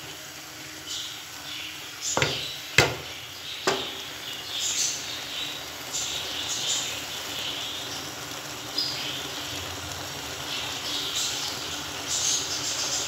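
Mustard greens boiling hard in an aluminium pot: a steady bubbling hiss with crackle. About two to four seconds in, the stirring ladle knocks against the pot three times, the middle knock loudest.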